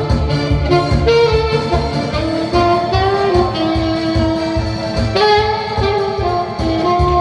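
Saxophone playing a song melody in held, stepping notes over accompaniment with a steady bass beat.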